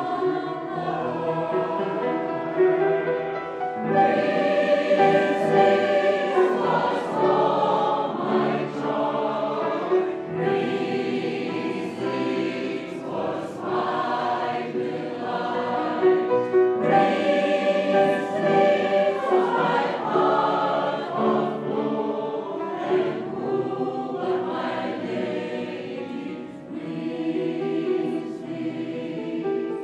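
Mixed choir of women and men singing together, growing louder about four seconds in.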